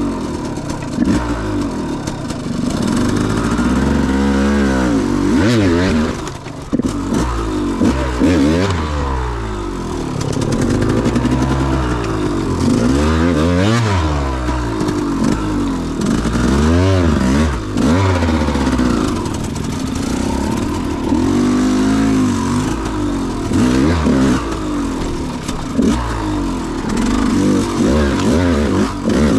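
KTM 200 XC-W two-stroke single-cylinder dirt bike engine being ridden hard, its pitch rising and falling over and over as the throttle is opened and shut.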